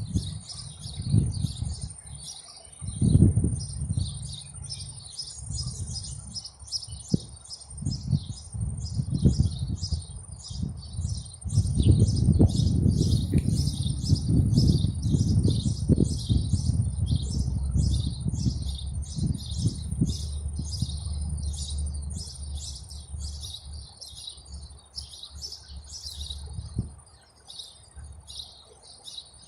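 Rhythmic high chirping outdoors, about two chirps a second, over a steady high-pitched whine, with uneven low rumbling on the phone microphone as the loudest sound.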